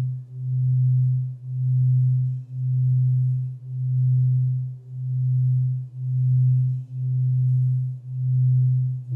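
Alchemy crystal singing bowl sounding a single low tone for the root chakra, swelling and fading about once a second in a steady pulse.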